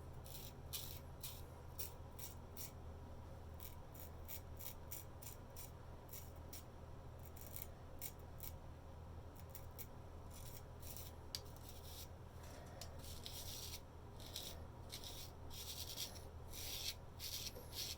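Antique straight razor shaving hair: a run of short, quick scraping strokes, over a steady low hum.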